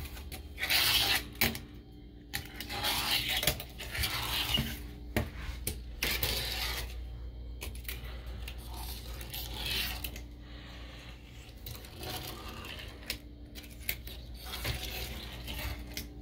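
A tiny fingerboard's wheels rolling and clattering around a porcelain sink basin: several short runs of rolling broken by sharp clacks of the board striking the bowl.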